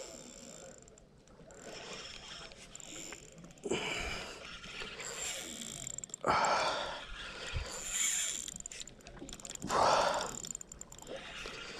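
Spinning reel being cranked against a fighting jack crevalle, with fine mechanical reel and drag clicks. Loud rushing puffs on the microphone come at about four, six, eight and ten seconds in.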